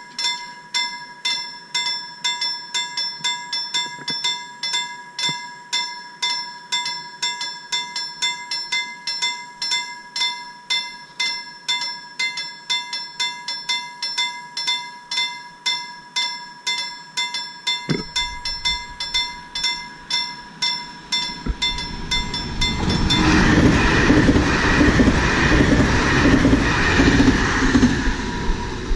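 Railway level-crossing warning bell ringing in rapid strikes, about two a second. Near the end a VR Pendolino electric train approaches and passes at speed, its loud rushing rail noise covering the bell.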